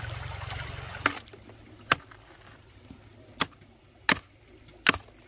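A low steady rumble that cuts off about a second in, followed by five sharp knocks at uneven intervals, the last two the loudest.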